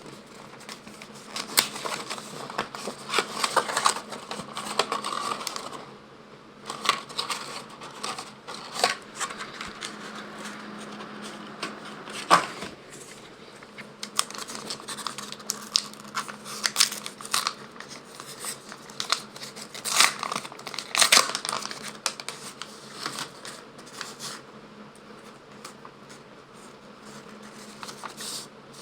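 Plastic wrapper of a McDonald's Pokemon promo card pack crinkling and tearing as it is opened by hand, with irregular rustles and clicks of the wrapper and cards being handled, over a faint steady hum.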